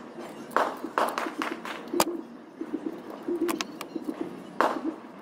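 Irregular clicks and knocks of a hand tool working the bolts of a CVT valve body as they are tightened to spec, with one sharp click about two seconds in and a heavier knock near the end.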